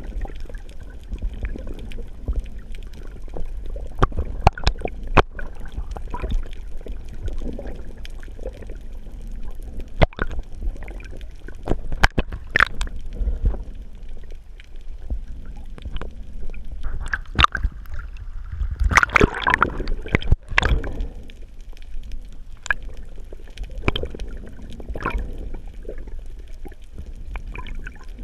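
Water sloshing and gurgling, muffled through a GoPro's waterproof housing during a breath-hold dive, with many scattered sharp clicks. About seventeen seconds in, a louder gurgling rush builds and fades over a few seconds.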